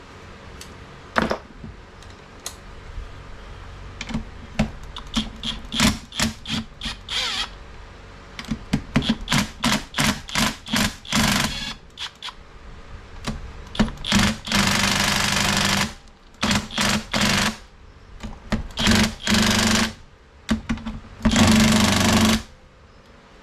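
Impact driver hammering in many short bursts, with two longer runs later on, backing out the screws that hold the sump cover on a Tecumseh 5 hp engine.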